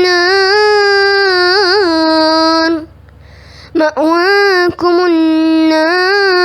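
A child's voice chanting Quran recitation, holding long drawn-out notes with wavering melodic ornaments. It breaks off for a breath about three seconds in, then takes up the chant again on another long held note.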